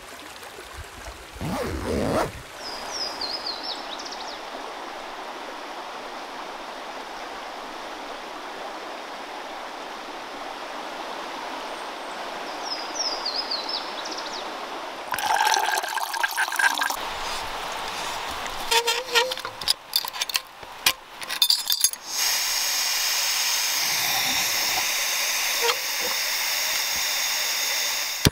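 A stream flowing steadily, with a few short bird chirps. About halfway in come clatter and a run of sharp clicks, and then a canister gas backpacking stove's burner hisses steadily under its pot.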